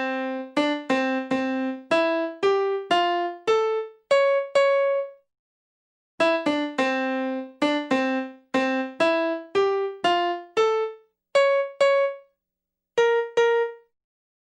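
A short cartoon-style melody played note by note on a piano-like keyboard: two similar runs of quick struck notes, each fading away, with short pauses between them and two final notes near the end.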